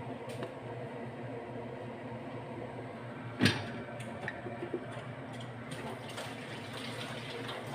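Kitchen sounds at a lit gas stove: a steady low hum, with one sharp knock about three and a half seconds in and a few light clicks after, as cooking oil is poured into a nonstick frying pan and left to heat.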